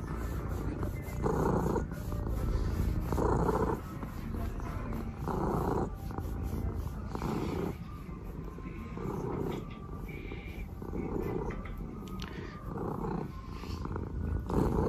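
Domestic cat purring while being stroked, the purr swelling and fading with its breathing, with a stronger swell about every two seconds over a steady low rumble.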